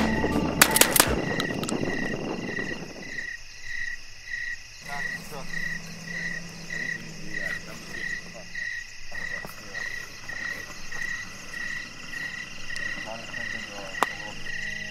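An animal chirping steadily and rhythmically, about twice a second, as music fades out over the first two seconds. There is a single sharp click near the end.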